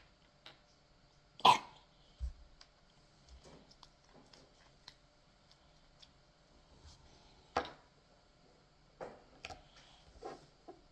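Very sticky slime being pulled and squished by hand: scattered soft clicks and sticky pops, with one louder sharp sound about a second and a half in and a few more near the end.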